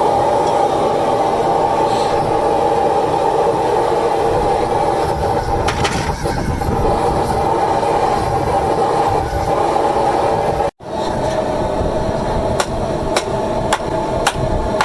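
A blacksmith's forge running with a steady rushing noise. In the last couple of seconds a hammer strikes iron on an anvil at a regular pace, about two blows a second.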